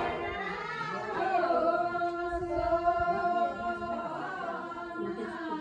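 Several voices singing together in slow, long-held notes, like a choir or chant.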